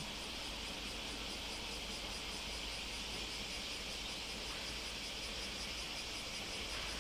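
Insects buzzing in a steady high-pitched chorus, with a fine rapid pulsing in the sound.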